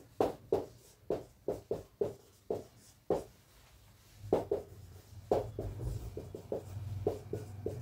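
Marker pen writing on a whiteboard: a quick run of short, separate strokes as an equation is written out.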